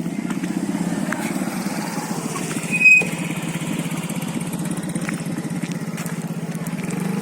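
A small engine running steadily with a fast, even pulse, and a short, sharp high-pitched sound about three seconds in.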